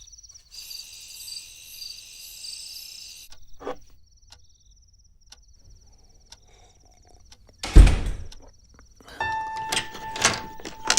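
Crickets chirping steadily, denser and louder for the first few seconds. A single loud thump about eight seconds in, then music with struck, held notes begins.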